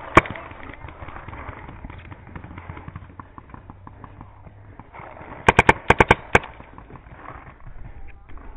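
Paintball marker shots: one sharp pop at the start, then a rapid burst of about seven shots in under a second, a little past the middle.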